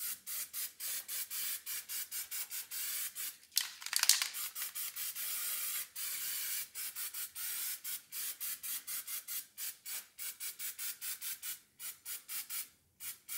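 Aerosol can of paint stripper spraying in quick short hissing bursts, several a second, with a longer unbroken spray in the middle.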